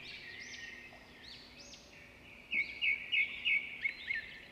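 Birds chirping and twittering, with a quick run of sharp, louder chirps a little past halfway.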